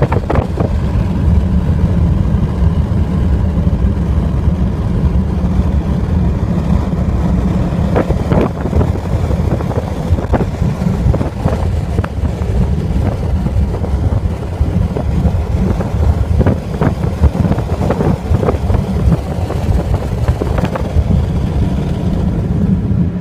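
Steady low road and engine rumble of a car driving along, heard from inside the cabin, with scattered brief knocks.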